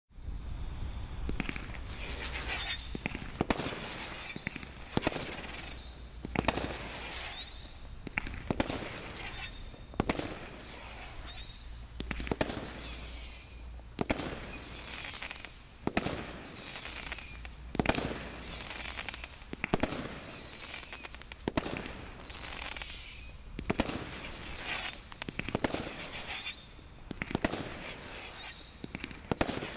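A Cat 3 combination roman candle barrage firing a steady run of shots, a little more than one a second, with crackling between them. For a stretch in the middle, a short falling high-pitched whistle follows each shot.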